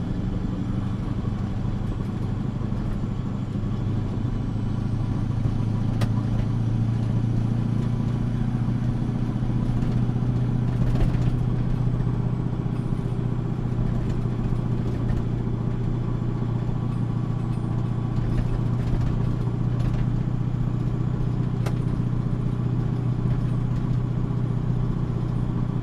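Septic truck's engine running steadily as it drives, a low drone whose pitch rises a little about five seconds in, with a few sharp clicks and rattles.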